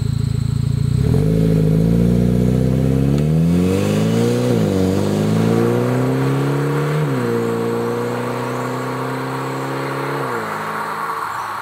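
2008 Mitsubishi Lancer Evolution X's turbocharged four-cylinder running through a Buschur Racing 3-inch stainless catback exhaust with the quiet muffler option, accelerating hard away. The pitch climbs, drops at an upshift about four and a half seconds in and again about seven seconds in, then falls when the driver lets off near the end, the sound fading as the car moves off.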